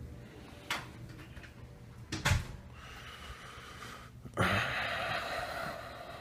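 A house door being opened: a click, then a louder knock about two seconds in, then a sudden rushing noise from about four and a half seconds that slowly fades.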